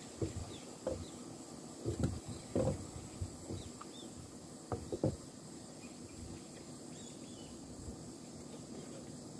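Wooden frame of a folding camping roll table being unfolded: a string of short wooden knocks and clicks from the wooden rails and metal hinge brackets as the legs are swung open and set down. The knocks fall in the first five seconds or so, then it goes quiet.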